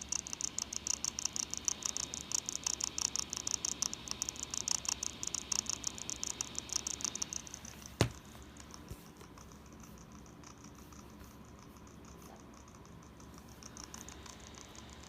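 Dell Inspiron 5505 laptop cooling fan making an abnormal rapid rattling tick, the fault noise coming from the underside of the laptop. The rattling stops about eight seconds in with a sharp click, leaving a faint steady hiss.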